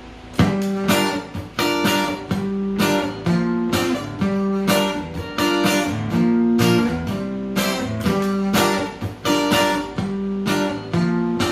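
Acoustic guitar strumming a rhythmic chord pattern, starting about half a second in: the instrumental intro of a song.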